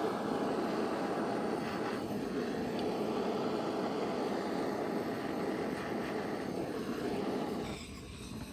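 Handheld gas blowtorch burning with a steady roaring hiss while it scorches a wooden test piece. The sound drops away about eight seconds in.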